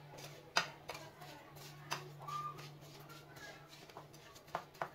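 Slotted metal spoon stirring grated coconut with sugar and milk in a ceramic bowl, with a few faint scrapes and clinks of metal against the bowl; the sharpest click comes about half a second in. A steady low hum runs underneath.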